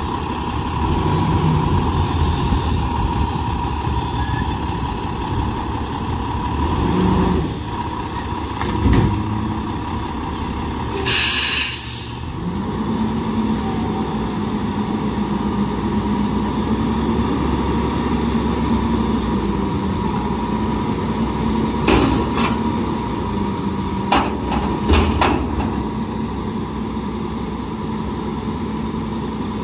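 Front-loader garbage truck (Autocar WXLL with a Hercules body) running while its hydraulic forks lift a recycling dumpster up over the cab: a short burst of air hissing about eleven seconds in, then a steady hum from the engine and hydraulics during the lift, with several sharp metal clanks of the container near the end as it is emptied.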